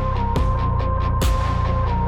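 Electronic background music with heavy bass: a deep kick drum strikes a little more than once a second under sharp percussion hits and a held synth tone that steps down in pitch.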